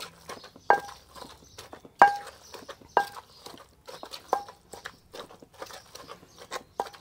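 A wooden pestle pounds a moist mushroom-and-herb paste in an earthenware mortar, striking about once a second. Each strike gives a short ringing clonk from the clay bowl, with softer knocks in between.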